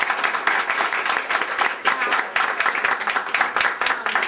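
A room of people applauding, many hands clapping in a dense, steady patter.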